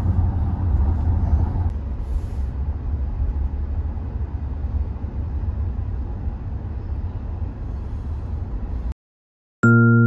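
Steady low road rumble inside a moving car's cabin, tyre and engine noise at highway speed. It cuts off about nine seconds in, and after a short silence a keyboard melody of bright single notes begins near the end.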